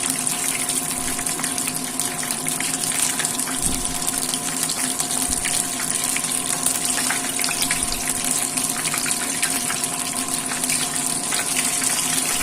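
Battered fish shallow-frying in hot canola oil, sizzling steadily with a dense spatter of fine crackles.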